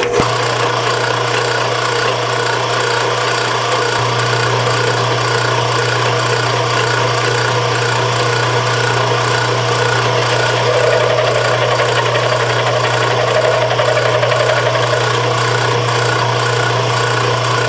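Horizontal milling machine switched on, its motor and spindle running steadily with a loud hum and whirr as the end mill spins.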